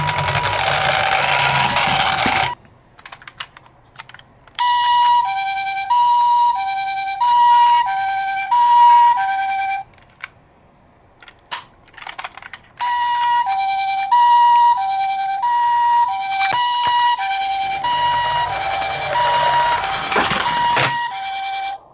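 Toy ambulance's electronic two-tone siren going high-low, high-low. It cuts out twice for a couple of seconds, with a few clicks, and starts again. A rushing noise runs under it at the start and again near the end.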